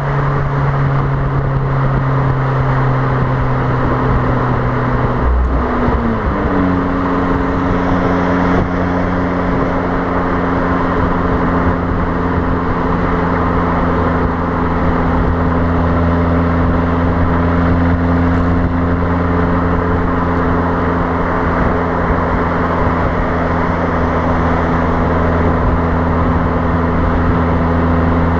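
Fiat Abarth 595's 1.4-litre turbocharged four-cylinder exhaust at motorway speed, heard from beside the tailpipe: a loud, steady drone. Its pitch drops abruptly about five seconds in, then holds steady. Wind noise on the microphone lies over it.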